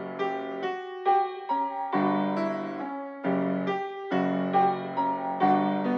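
Piano-style keyboard playing a slow sequence of chords, a new chord struck about every half second to a second.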